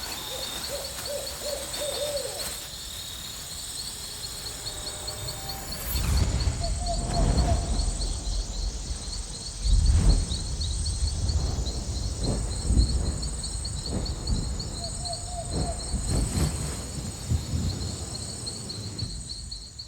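Insects chirping in a steady, high trill of rapid pulses. A few short, lower calls come through three times, and low rumbles begin about six seconds in.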